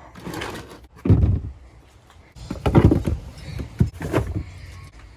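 A few heavy thuds and bumps with rustling in between, as of gear being pulled out and moved around in a cluttered garage.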